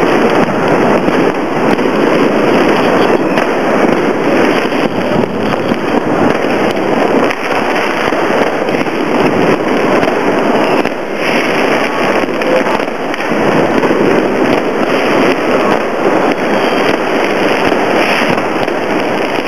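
Dense, unbroken barrage of many fireworks and firecrackers going off at once: countless overlapping bangs and crackles, easing slightly about halfway.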